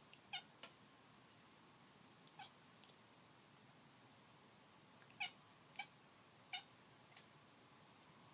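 Kitten making short, high-pitched squeaky calls, about eight of them with pauses between, the loudest three coming between about five and six and a half seconds in.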